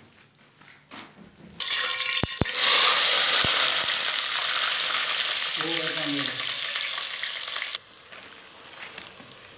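Sliced onions hitting hot oil in a steel pot over a wood fire: a sudden loud sizzle about one and a half seconds in, with a couple of sharp clicks as it starts. The sizzle runs on strongly, then drops to a quieter frying sound near the end.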